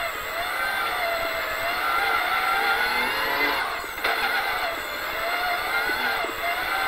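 Toyota Hilux rally-raid car's engine heard from inside the cockpit at speed, its revs rising and falling continuously with a brief dip about four seconds in, over steady road noise.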